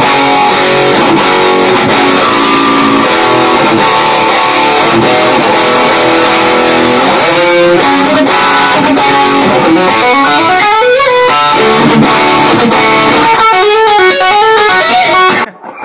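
Electric guitar being played: strummed chords and riffs at first, then fast single-note runs with sliding pitches from about halfway in, stopping abruptly just before the end.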